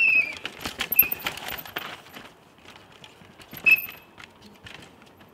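Downhill mountain bikes rattling over rocks and roots, tyres and chain clattering, with three short high squeals from the hydraulic disc brakes as riders brake into the section.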